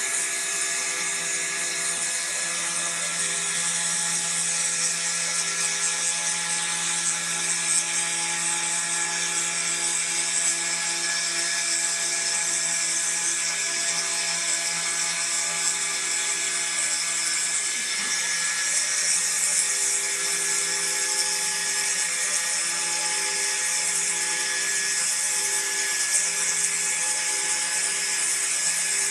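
A CPC-RC55 desktop CNC router runs steadily as it carves wood: a high spindle whine and cutting hiss, under a set of steady motor tones, some of which drop in and out as the axes move.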